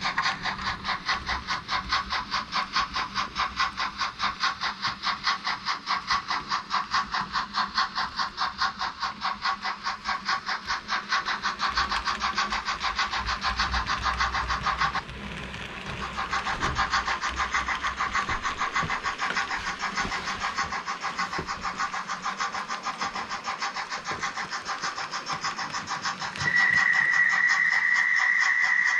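Sound decoder of a Märklin H0 BR 56.2-8 model steam locomotive giving rapid, even steam chuffing from its small speaker. The chuffing breaks off briefly about halfway and then resumes. A long, steady, high whistle tone joins near the end.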